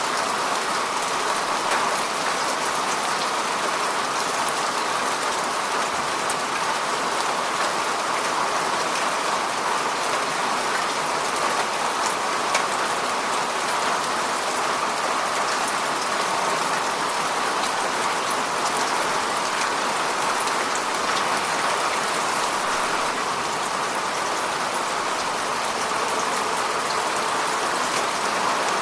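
Steady rain falling on a surface, an even hiss with many small drop ticks throughout.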